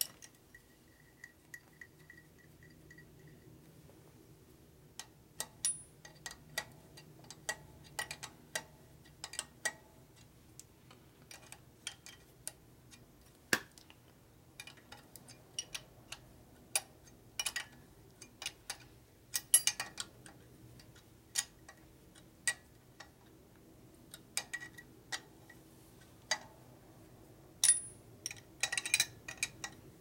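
Irregular small metallic clicks and clinks of a hand tool against the pushrod tubes and tappet block of a Harley-Davidson shovelhead engine, with a louder cluster about two-thirds of the way through and again near the end, over a faint steady hum.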